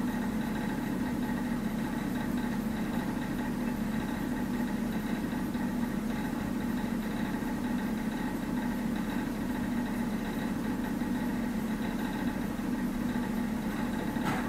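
A steady, unchanging motor hum with a low drone and faint higher whining tones above it.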